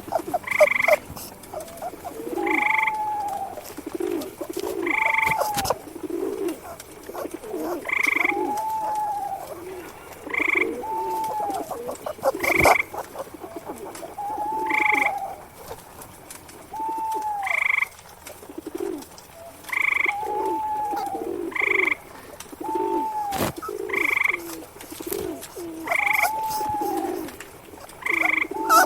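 Forest ambience of frogs croaking and doves cooing, the calls recurring every two to three seconds.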